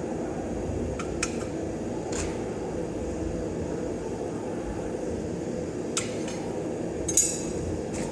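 Steel tools and workpiece clinking lightly against metal about five times, the loudest near the end ringing briefly, over a steady drone of shop machinery.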